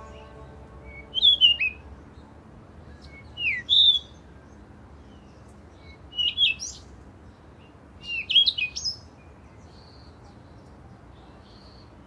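A songbird chirping in four short phrases a couple of seconds apart, each a quick run of high chirps sweeping up and down in pitch, then fainter calls near the end, over a faint steady hiss. A music track fades out in the first second.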